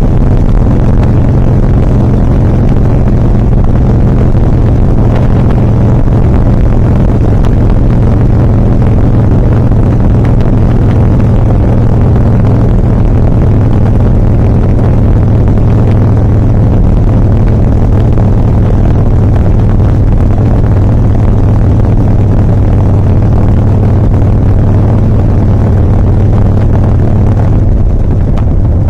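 2007 Harley-Davidson Softail Custom's V-twin engine running steadily and loudly, its fuel dosed with Seafoam to cure a stumbling 'hiccup'.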